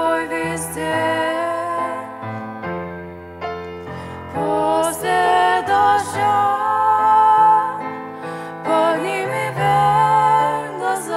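Two girls singing a Russian Christian song as a duet, accompanied on grand piano, in slow sustained phrases.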